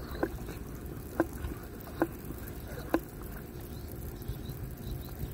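Plastic pump sprayer being hand-pumped: the plunger handle gives a short, sharp squeak on each stroke, four strokes about a second apart, while water sprays from the wand.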